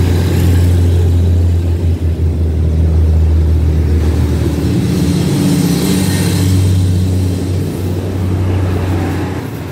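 SRT diesel railcar train passing close alongside on the next track, its underfloor diesel engines running with a steady low drone and a rushing hiss of the cars going by. The sound begins to fade near the end as the last car passes.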